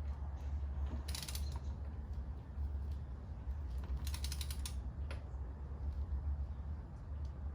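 Ratchet of a torque wrench being cranked, two short runs of rapid clicks, the first about a second in and the second about four seconds in, over a steady low hum.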